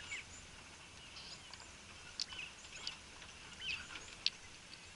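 Quail fighting: faint, scattered short chirps and squeaky calls, with two sharp ticks about two and four seconds in.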